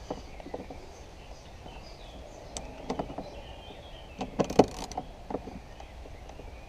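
Light clicks and scrapes of a long screwdriver turning a T30 trim bolt into a car's plastic door trim, with a quick run of clicks about four and a half seconds in.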